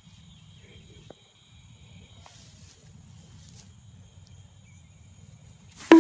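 Faint, steady high-pitched insect drone, like crickets in long grass, over a low rumble. Near the very end a sudden loud call cuts in.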